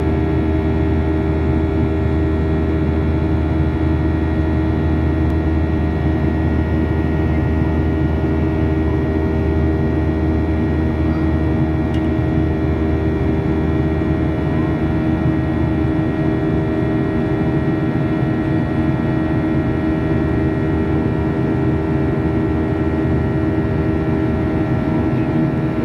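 Airliner cabin noise in flight: a steady engine and airflow drone with several constant tones laid over it. The low rumble eases slightly about sixteen seconds in.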